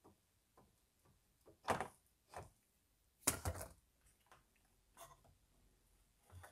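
Plastic mounting piece being pried and worked off the plastic end tank of a BMW E46 radiator: a scattered series of hard plastic knocks and clicks, the loudest cluster about three and a half seconds in.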